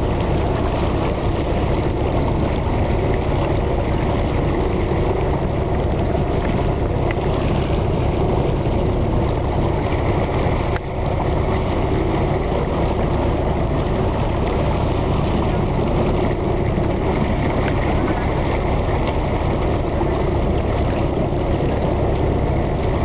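Motorboat engine running steadily with the rush of water and wind as the boat moves along, one short knock about eleven seconds in.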